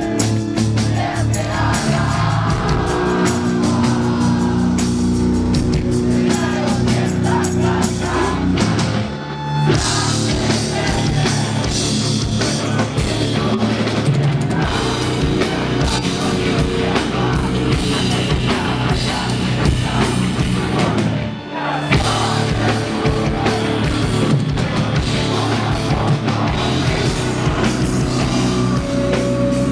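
A rock band playing live and loud, with drum kit and guitars driving the song. Twice, about nine seconds in and again past twenty seconds, the band drops out for a moment before crashing back in.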